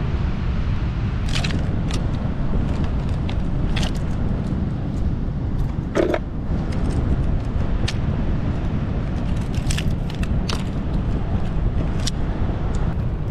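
Mussel shells clicking and clacking against each other as a hand picks through a dense bed of mussels and barnacles, with scattered sharp clicks over a steady low outdoor rumble.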